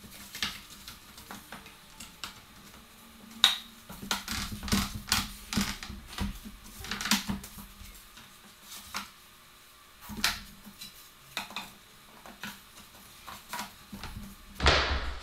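Spruce door boards knocking and clattering against each other as the rails and slats of a barn door are handled and fitted together: irregular knocks, a quick run of them a few seconds in, and a longer, louder noise near the end.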